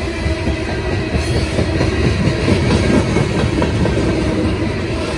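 Loaded CSX coal hopper cars rolling past, a steady rumble with the wheels clacking over the rail joints.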